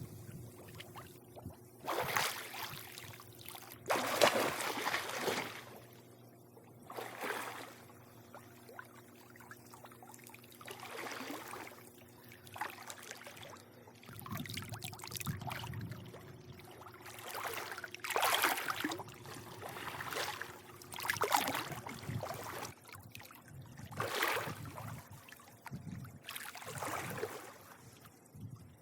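Swimming pool water lapping and splashing in irregular surges every couple of seconds, the strongest about four seconds in, over a faint steady hum.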